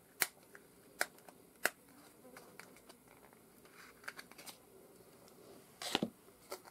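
Small handling clicks and taps of jewelry-making tools and pieces on a work surface: three sharp clicks in the first two seconds, soft rustling, then a brief cluster of clicks near the end.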